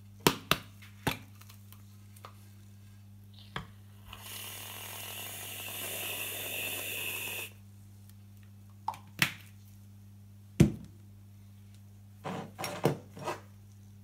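Plastic canister of grated frozen white chocolate handled over a dish and slate board: scattered sharp knocks and taps, with a steady grainy hiss for about three seconds in the middle as the flakes are shaken out. The loudest knock comes about ten seconds in, followed by a quick cluster of taps.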